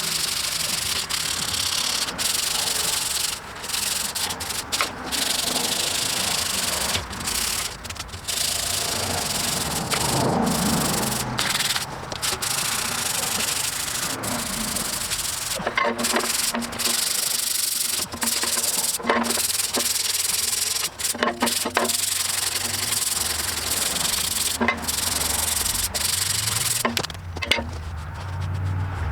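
Old bolt threads being cleaned up by hand, a continuous scraping with a few short breaks.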